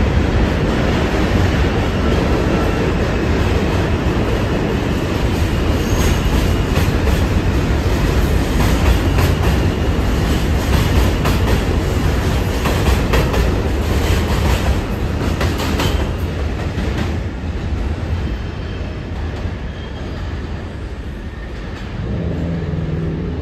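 R160 subway train pulling out of the station and running past on the elevated track, its wheels clacking over rail joints. The noise fades gradually over the last several seconds as it leaves.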